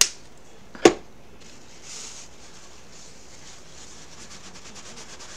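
A sharp knock about a second in, then a wet paper towel rubbing quickly back and forth over a chalked surface, a steady scrubbing hiss, wiping off chalk registration marks.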